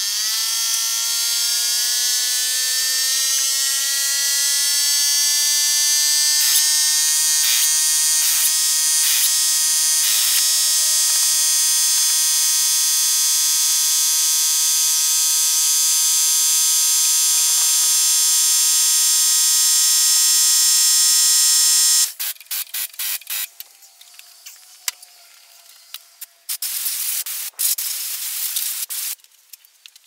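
A small motor starts with a rising whine, runs at a steady high pitch for about twenty seconds, then cuts off suddenly. A few knocks come about a third of the way in, and scattered clicks and clatter follow after it stops, while a tractor's rear wheel is being taken off.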